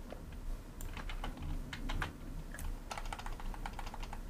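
Computer keyboard keys clicking in irregular taps, with a quick run of key presses about three seconds in.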